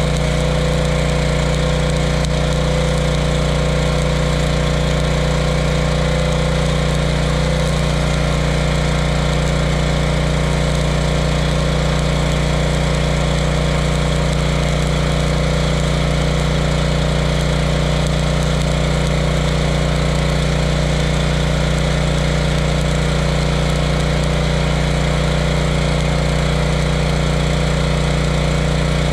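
Stick-welding arc crackling and hissing steadily as a 3/32-inch 11018 low-hydrogen electrode burns at about 95 amps from a Hobart Stickmate stick welder. Under it, the steady engine hum of the Ridgid portable generator powering the welder.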